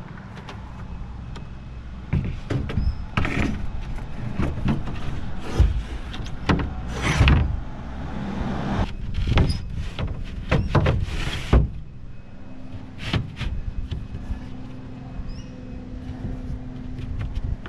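A cut boat deck panel being slid and knocked into place to line it up: irregular knocks and thumps, with longer scraping slides about seven and eleven seconds in.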